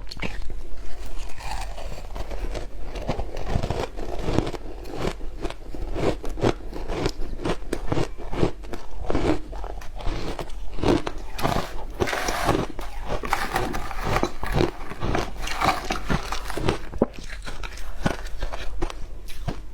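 Close-up crunching and chewing of frozen matcha ice: many sharp, irregular crunches and cracks in quick succession.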